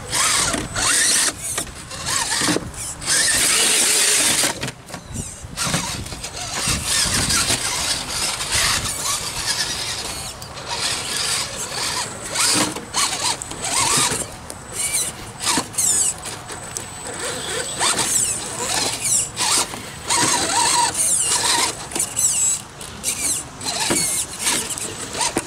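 Electric motor and geared drivetrain of a scale RC rock crawler whining in short stop-start bursts as it is throttled over rocks.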